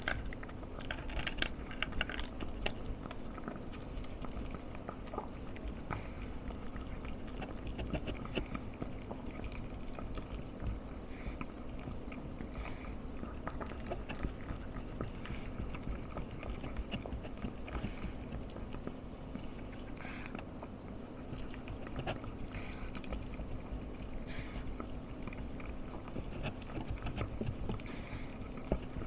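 Pomeranian eating from a bowl: steady small chewing and mouth sounds, with sharper clicks every couple of seconds.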